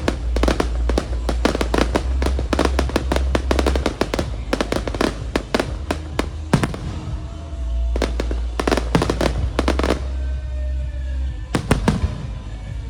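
Fireworks going off in rapid, crackling volleys of many sharp bangs, with a brief lull about seven seconds in and a few last cracks near the end, over a deep low rumble.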